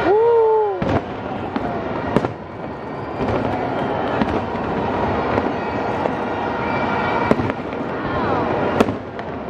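New Year's Eve fireworks display going off over a crowd: sharp bangs about two, seven and nine seconds in, over a steady din of crowd noise. A loud tone rises and falls at the very start.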